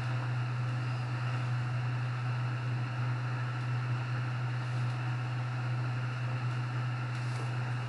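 Steady low hum with an even hiss: constant background noise with no distinct events.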